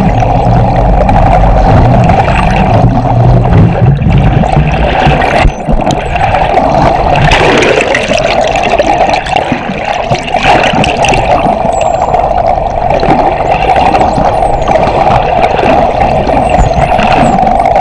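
Bottlenose dolphins heard underwater: faint high whistles sweeping up and down from about seven seconds in, with scattered clicks, over a loud steady rushing of water.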